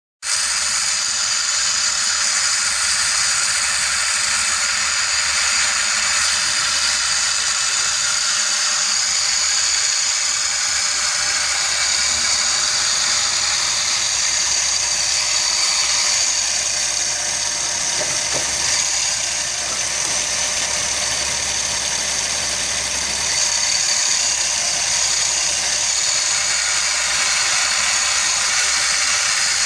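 2007 Jeep Wrangler JK's 3.8L V6 running with a steady high-pitched squealing, grinding whir from the serpentine belt's tensioner pulley: the tensioner pulley bearing is bad, not the water pump.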